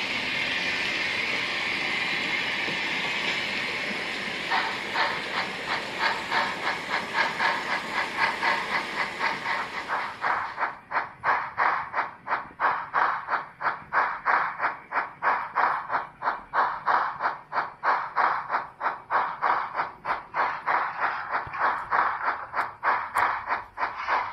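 Märklin model train running: a steady hiss with an even clicking that grows stronger. About ten seconds in the hiss drops away, leaving a regular clicking at about three a second.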